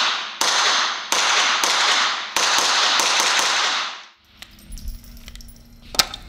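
Four quick suppressed shots from a pistol wearing a .22 rimfire suppressor mounted by a three-lug coupler, each shot ringing on in a long echo off the range's concrete walls that dies away by about four seconds in. A single sharp click near the end.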